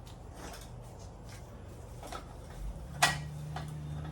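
Light metallic clinks of tools and engine parts being handled, with one sharp metal click about three seconds in, over a low steady hum.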